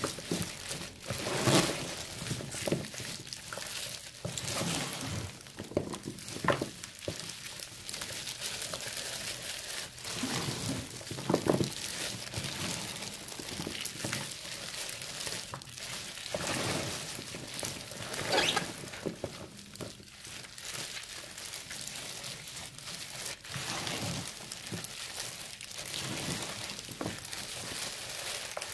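Wet squishing and crinkling of green onions being tossed and rubbed by a plastic-gloved hand in thick red chili-pepper seasoning in a plastic basin, in irregular strokes.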